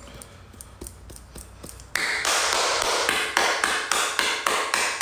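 Handling noise on a phone's microphone: faint clicks at first, then, about two seconds in, loud rapid tapping and rubbing right against the mic, several taps a second.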